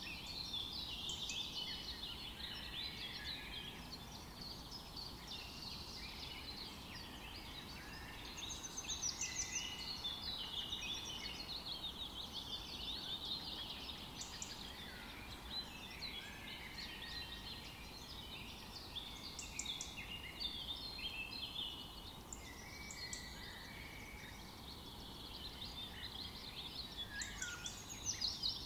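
A busy chorus of many small birds chirping, with overlapping short calls that go on without a break.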